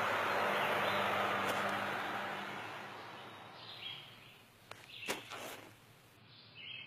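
Steady outdoor rural noise that fades away over the first three seconds, followed by a few faint short knocks or scrapes around five seconds in while soil is packed around a wooden pole.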